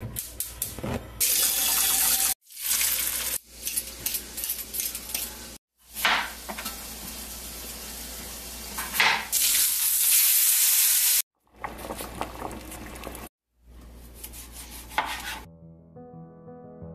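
Cooking sounds in short, hard-cut pieces: food sizzling in a pan and a kitchen knife cutting on a cutting board, with sharp knocks and abrupt breaks between the pieces. Soft music starts near the end.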